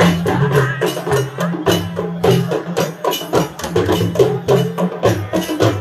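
Yoruba talking drums (dundun) played in a fast, dense rhythm of stick strokes, with notes that slide up and down in pitch.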